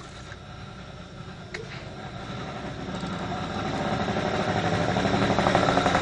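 A motor vehicle engine growing steadily louder, as if approaching, with a fast even pulse that becomes clearer in the second half.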